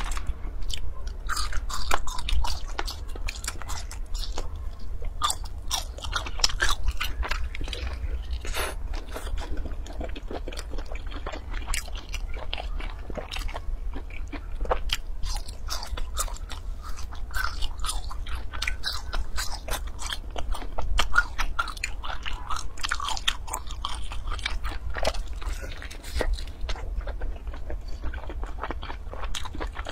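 Close-miked chewing and biting with many sharp crunches, as a pan-fried stuffed bun and spicy sticks are eaten, over a steady low hum.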